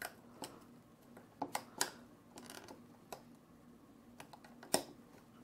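Faint, irregular clicks and taps as a quadcopter's top plate and camera mount are handled and their tabs are worked into the plate's slots, about eight in all, the loudest near the end.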